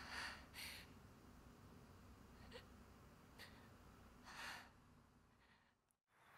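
Near silence: faint room tone with a few soft breaths from a woman, then dead silence near the end.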